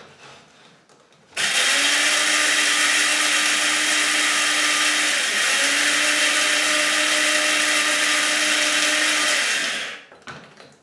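Small electric blade grinder grinding caraway seeds: the motor starts about a second and a half in and runs steadily for about eight seconds, with a brief hitch in its hum about halfway through, then stops near the end.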